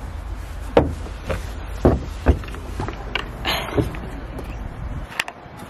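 Wind buffeting the microphone as a low rumble that drops away about five seconds in, with several sharp knocks and bumps from the camera being handled and carried.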